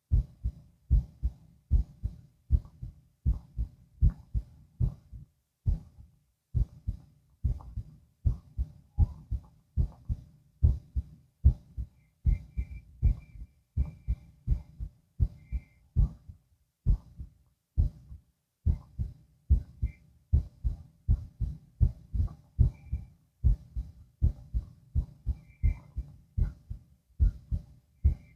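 A human heartbeat heard through a stethoscope: paired lub-dub heart sounds repeating in a steady, even rhythm.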